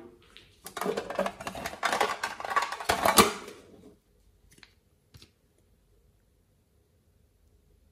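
Close clicking and crackling of small plastic slime containers and tools being handled, a dense run of clicks for about three seconds that is loudest near its end, then a couple of faint single clicks.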